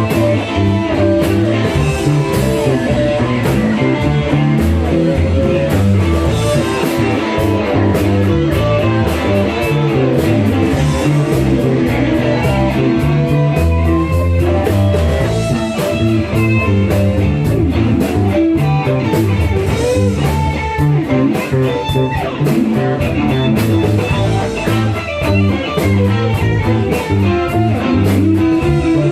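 Rock music with electric guitar, bass and drums playing a steady beat.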